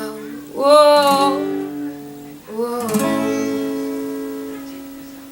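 Acoustic guitar and a singer closing out a song: two short sung notes over the guitar, then a last chord strummed about three seconds in that rings out and fades away.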